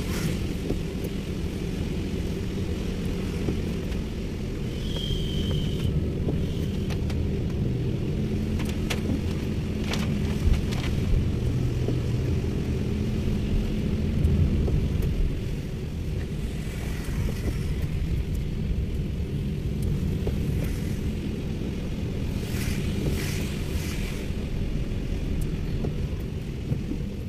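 Car driving on a wet road, heard from inside the cabin: a steady low rumble of engine and tyres, with a few faint ticks.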